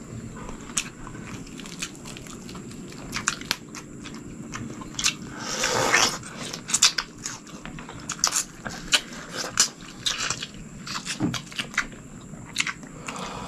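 Close-up mouth sounds of two people eating chicken and watermelon: biting and chewing with many short wet clicks and smacks, and a longer, louder bite about six seconds in.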